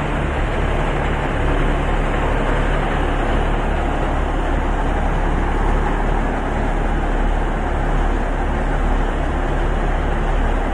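Heavy truck engine idling: a steady low drone that holds the same speed throughout.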